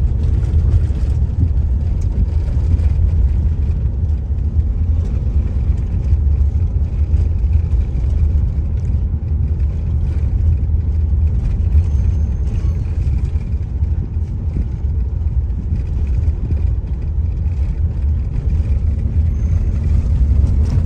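Car driving along a road, heard from inside the moving vehicle: a steady low rumble of engine and tyre noise with no distinct events.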